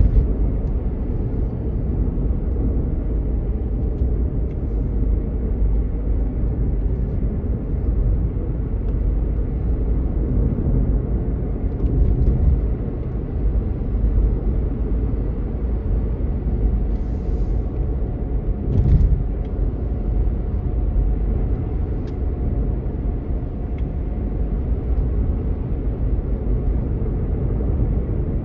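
Steady low rumble of a car driving on a paved road, tyre and engine noise heard from inside the cabin, with a couple of brief knocks about two-thirds of the way through.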